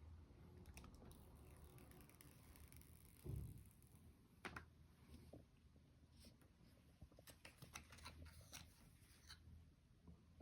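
Faint handling sounds of a product being unboxed: soft rustles and small clicks of packaging, with a dull thump about three seconds in and a cluster of light clicks near the end.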